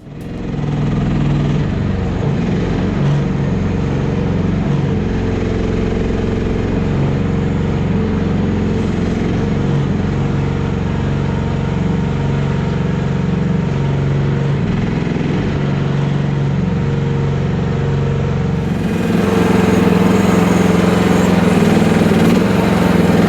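FF12 mini excavator's small engine running steadily. About nineteen seconds in, it becomes louder and brighter.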